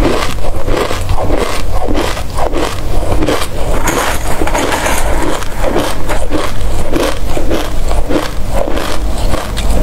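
Close-miked crunchy chewing of a mouthful of black seeds, in a steady rhythm of about two chews a second, with a spoon scraping through the seeds in a metal tray partway through.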